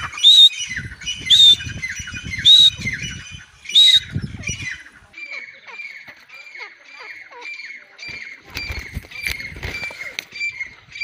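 Grey francolin calling: four loud, shrill calls about a second apart, then a quicker run of softer, short high notes about two a second. Low rumbling noise sits under parts of it.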